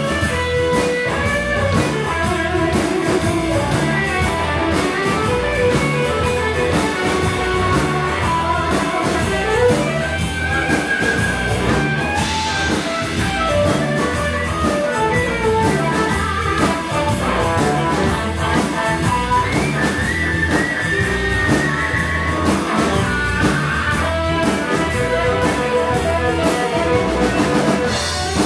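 Live band playing a blues-rock jam: electric guitars, bass guitar and a drum kit, with a guitar playing melodic lead lines with bent notes over a steady beat.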